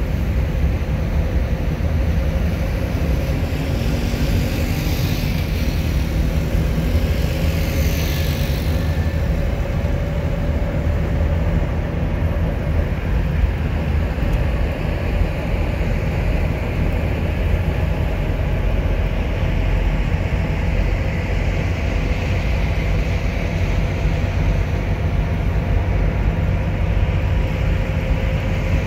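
Steady engine and tyre rumble of a moving car heard from inside the cabin, with a faint steady hum and a brief rising and fading hiss about five to nine seconds in.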